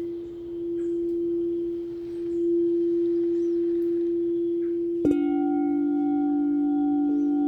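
Singing bowl ringing with one steady held tone that swells and fades slowly. About five seconds in, another bowl is struck, adding a lower ringing tone with higher overtones above it, and a further tone joins near the end.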